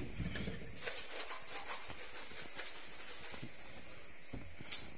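Faint, irregular taps and shuffling, like light footsteps and handling on a tiled floor, over a steady hiss, with one sharp click near the end.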